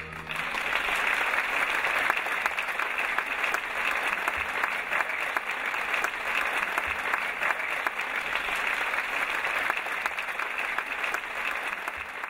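Audience applauding steadily after a ballet solo, tapering off near the end.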